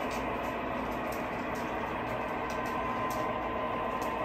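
O scale model train running on the layout track: a steady rolling rumble with faint clicks from the wheels.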